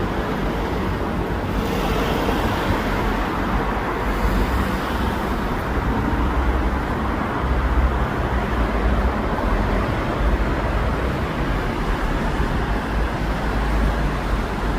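Steady city traffic noise with a deep low rumble, swelling briefly twice in the first six seconds.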